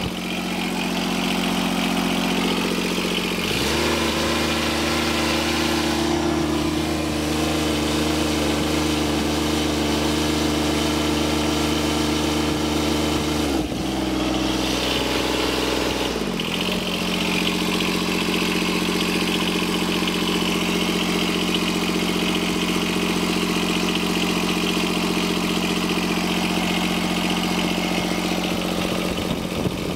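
The Yanmar diesel engine of a John Deere 2653A trim reel mower running steadily. It speeds up about three seconds in, holds the higher speed for about ten seconds, then drops back down to a steady lower speed.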